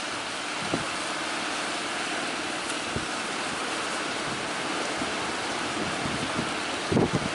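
Steady rushing hiss of waves breaking in surf.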